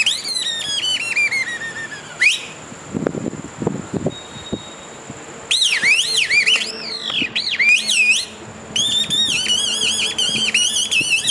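A kathputli puppeteer's boli, the reed whistle held in the mouth to give the marionettes their squeaky voices, sounding in high, warbling phrases that swoop up and down. After about two seconds it breaks off for some three seconds, when a few low thumps are heard, then comes back in quick phrases to the end.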